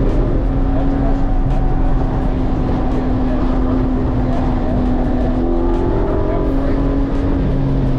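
Sports car engine running steadily on a racetrack.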